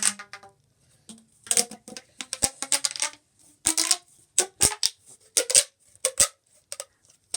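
Plastic pop tube popping: a string of sharp, irregular snaps as its ribbed segments click in and out, some with a short ring.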